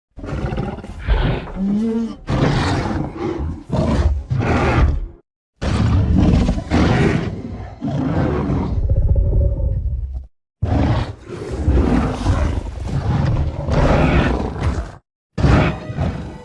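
Movie creature sound effects of the giant ape Kong: a run of deep, loud roars and growls, each a separate clip that cuts off abruptly into a short gap of dead silence before the next begins, about four in all.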